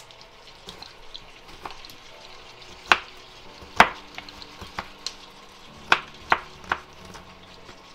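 Kitchen knife chopping an onion on a cutting board: irregular sharp knocks of the blade on the board, about five loud ones from about three seconds in, with lighter taps between.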